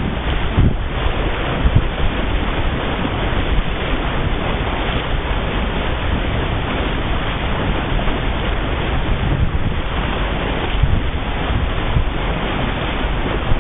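Wind buffeting the microphone over the steady rush of water along the hull of a sailboat planing at speed, with a couple of louder gusts about a second in.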